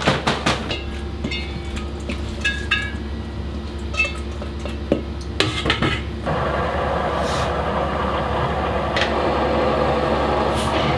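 Metal bowls clinking and knocking against a steel mixer bowl as ingredients are tipped in, then about six seconds in a commercial dough mixer starts and runs steadily, its hook kneading croissant dough.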